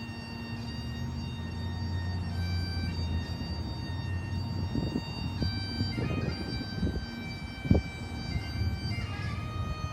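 Bagpipes playing a slow tune, the melody moving through several held notes over a steady low drone. A single dull thump sounds near the end.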